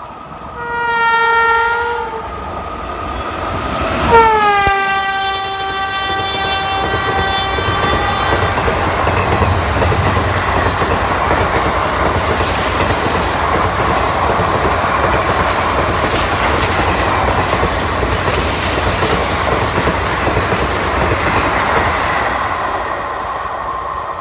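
WAP5 electric locomotive's horn sounding twice as it approaches and passes at speed: a short blast, then a longer, louder one whose pitch drops as the locomotive goes by. Then the passenger coaches of the express run past on the rails with a steady rumble that fades near the end.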